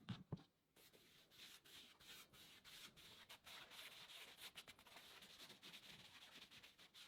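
Two soft knocks right at the start, then quiet scratchy rubbing on wood in quick repeated strokes, as diluted antiquing tint is worked into the chest's surface by hand.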